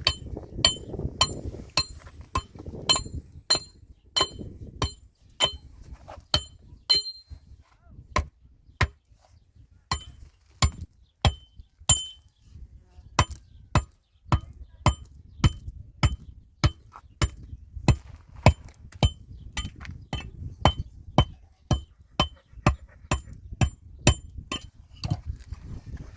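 Repeated sharp metal-on-metal strikes, about two a second, each with a short ringing clink, like steady hammering, with a brief pause about halfway through.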